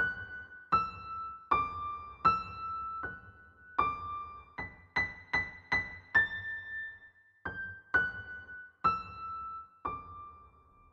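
A slow single-line melody played one note at a time on an electric piano, each note struck and left to fade. A few quicker notes come in the middle, then the tune steps down to a final note that rings on.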